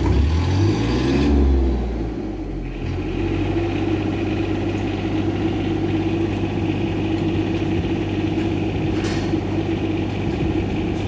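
Denyo engine-driven welding generator starting up: the engine catches, revs up and back down over about two seconds, then settles into a steady idle. A brief light click about nine seconds in.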